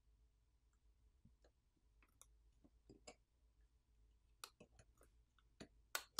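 Faint, scattered clicks and light taps from handling the internals of an opened smartphone. They come more often in the second half, and the sharpest click comes near the end as a metal pry tool works at the subboard's flex cable connectors.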